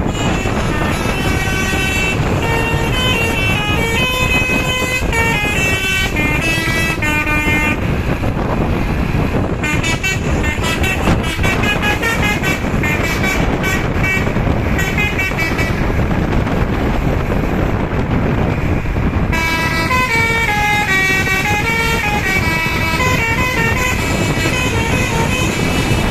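A bus's multi-tone telolet horn playing a tune: stepping notes at first, then quick stuttering notes, then siren-like rising and falling sweeps from about two-thirds of the way in, over a steady low engine and street rumble.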